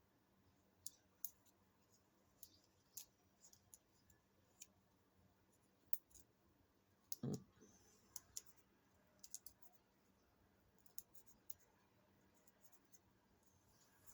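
Quiet work sounds of small paper die-cut pieces being handled and pressed into place: scattered faint clicks and taps, with one louder soft knock about seven seconds in.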